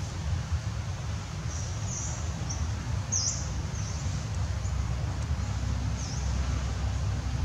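Outdoor ambience: a steady low rumble, with a handful of short, thin, high chirps, several close together in the first half and one more near the end.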